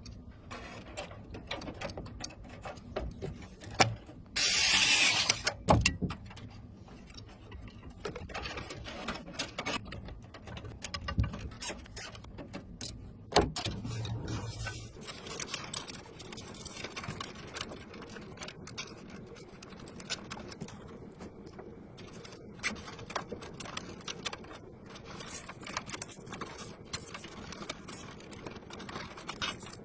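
Scattered small clicks, ticks and mechanical rattling, like a small object or mechanism being handled, with a short loud burst of hiss about five seconds in.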